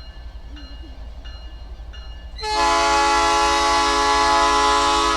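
Locomotive air horn sounding one long blast of several notes at once, starting about halfway through and held steady for nearly three seconds. Before it there is a low steady rumble and a short beep repeating about every 0.7 seconds.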